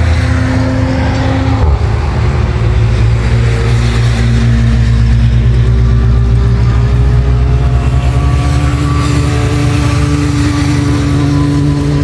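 Steady engine drone of heavy traffic on a nearby highway, a low rumble with several pitched engine notes that slowly rise and fall as vehicles pass.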